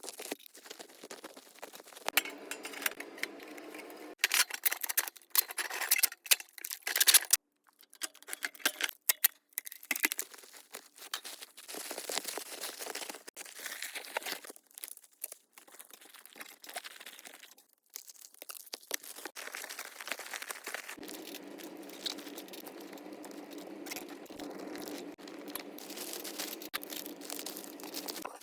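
Irregular scraping, crinkling and tapping handling noises from hands-on installation work on an HVAC register and its opening. A steady hum runs under it in the last third.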